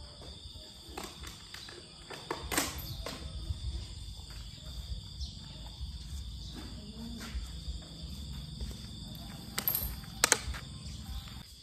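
Insects singing in a steady high drone over a low rumble, with a few sharp clicks or knocks: one about two and a half seconds in and two louder ones near the end.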